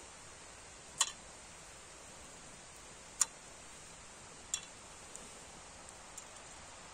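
Small dry twigs dropped into the chimney of an aluminium storm kettle, each landing with a sharp light click: three clear clicks a second or two apart, then a few fainter ticks, over a faint steady hiss.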